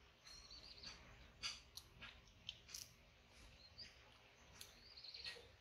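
Faint wet clicks of young monkeys chewing and biting soft mango, scattered irregularly through the quiet.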